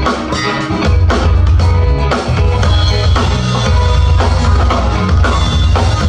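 Live band playing an upbeat pop-rock song, with a drum kit keeping a steady beat over a heavy bass line and sustained notes.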